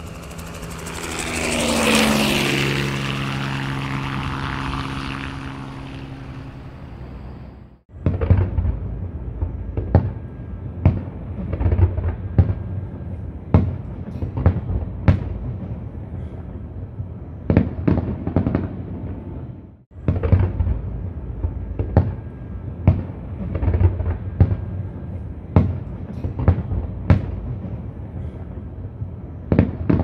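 A passing engine drone with a falling pitch that cuts off abruptly, followed by a fireworks display: many sharp bangs of shells bursting, several a second, with a brief gap partway through.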